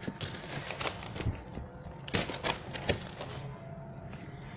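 A spiral-bound notebook being handled as a page is turned: paper rustling with a scattered series of light clicks and taps, most of them in the first three seconds.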